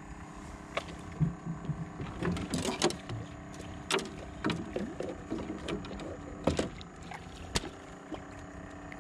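Sharp little clicks and knocks of a hook and lure being handled and worked free of a small fish's mouth, over a steady low hum.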